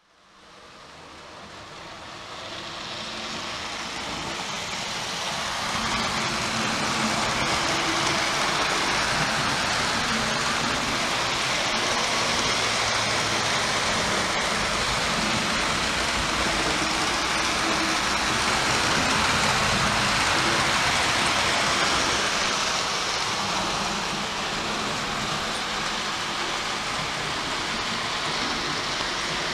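American Flyer prewar 572 4-8-4 tinplate toy steam locomotive running with its cars on O gauge track: a steady rushing noise of motor, gears and wheels on the rails. It swells up over the first few seconds, holds steady, and eases slightly near the end.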